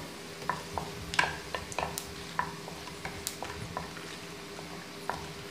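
Whole dried red chillies and panch phoron frying in hot mustard oil in a pan and being stirred with a wooden spatula: a soft sizzle with scattered light ticks.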